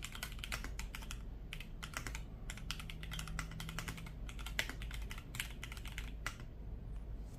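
Typing on a PSD68 mechanical keyboard fitted with lubed and filmed Gateron Milky Yellow linear switches, GMK Metaverse clone keycaps and a two-layer tape mod: quick, uneven keystrokes, several a second, that stop near the end.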